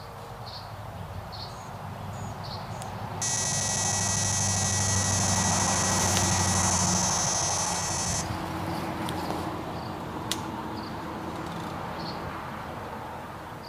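Electronic carp-fishing bite alarm sounding one continuous high buzz for about five seconds. It starts a few seconds in and cuts off suddenly, signalling a take on one of the rods.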